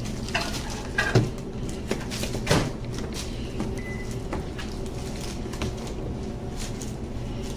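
A few light knocks and clicks of containers and utensils being handled, the two loudest about one and two and a half seconds in, over a steady low hum.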